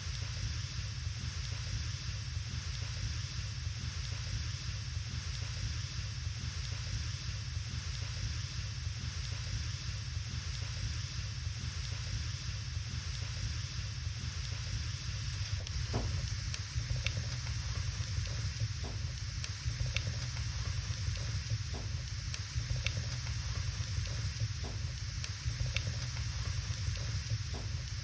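Wood fire burning in a fireplace: a steady hiss, with sharp crackles and pops from the burning logs scattered through the second half.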